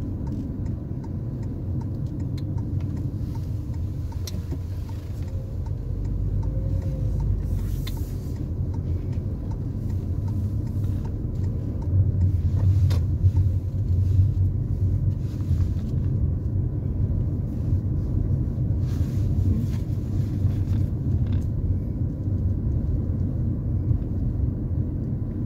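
Steady low rumble of a car's engine and tyres heard inside the cabin while driving slowly. It grows somewhat louder about halfway through.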